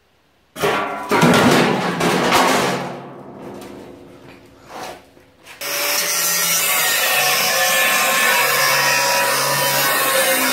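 Corded electric angle grinder working on an enamelled bathtub. It starts with a loud, uneven stretch of grinding that swells and fades. About halfway through it settles into a steady run with the disc held against the tub.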